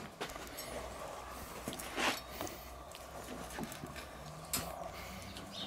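Kitchen knife slicing a grilled steak on a wooden cutting board: a few soft knocks of the blade on the board, about two and four and a half seconds in, over a low steady hum.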